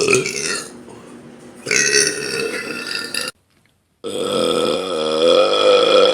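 Loud deliberate belching: throaty belches in the first three seconds, then, after a sudden break, one long drawn-out belch with a wavering pitch.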